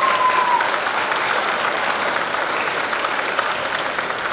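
An audience applauding steadily, with a single held high-pitched call from the crowd that ends about half a second in.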